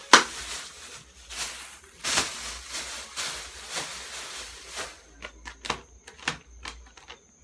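Handling noise of a bag or plastic wrapping: irregular rustling and crinkling, then a quick run of sharp clicks and taps near the end.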